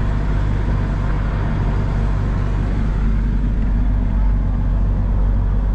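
Vehicle engine running steadily with road and tyre noise, heard from inside the moving vehicle.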